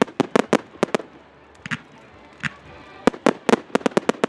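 Aerial fireworks bursting overhead in sharp, rapid bangs. A quick volley of about six bangs comes in the first second, two single reports follow, and another fast run of about seven bangs starts about three seconds in.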